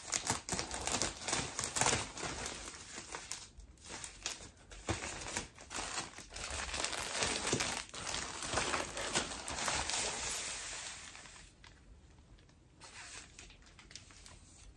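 Plastic packaging rustling and crinkling as a dress is pulled out of its clear plastic bag and white plastic mailer bag, with many small crackles. The rustling dies down about eleven seconds in, then picks up a little near the end.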